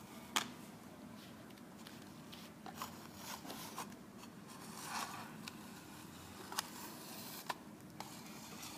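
Faint scraping and a few sharp clicks as a small plastic model tank on its diorama base is turned and shifted by hand on a hard tabletop.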